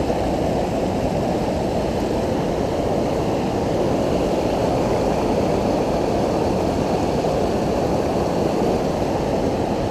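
Steady rush of a river running over rocky rapids: an even, full water noise that stays level throughout.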